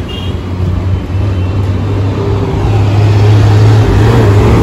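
Engine of a city bus running as it drives up the road toward the camera, growing louder about three seconds in, with general street traffic behind it.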